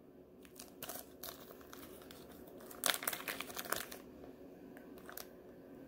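Clear plastic poly bag crinkling as it is handled and opened, with a louder flurry of crinkles about three seconds in.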